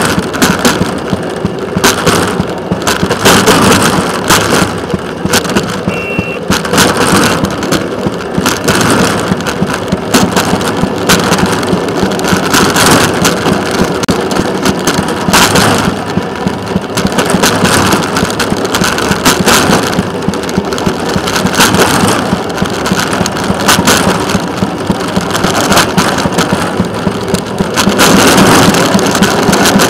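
Rail excursion car WCRG 1945 running along the track: a steady engine hum under the noise of wheels rolling on the rails, with wind buffeting the microphone.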